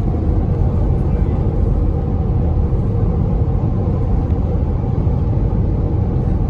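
A vehicle's steady low rumble, even in level throughout.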